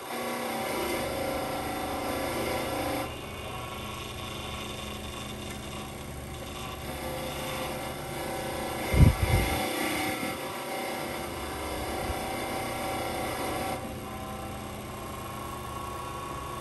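A motor-driven wire brush runs steadily as a metal fan part is worked against it, louder for the first three seconds. There is a single loud thump about nine seconds in.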